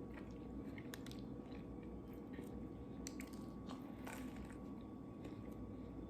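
A person chewing a mouthful of burger, faint, with scattered small crunches and mouth clicks.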